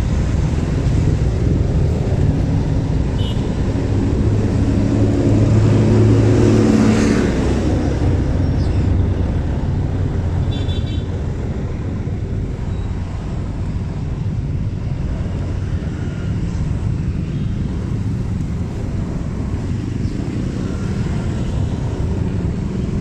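Slow, jammed street traffic heard from a motorcycle: a steady low engine rumble from the bike and the jeepneys alongside. One engine runs up in pitch about five to seven seconds in, and a short high horn toot sounds about eleven seconds in.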